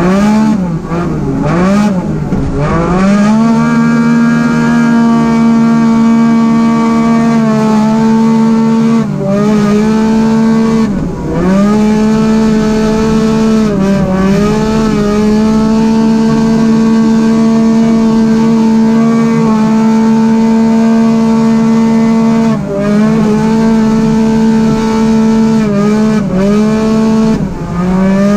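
Arctic Cat Wildcat XX race UTV engine heard from inside the cab under race throttle. The pitch swings up and down quickly at first. It then holds steady at high revs, dipping briefly and climbing back about six times as the throttle is lifted and reapplied.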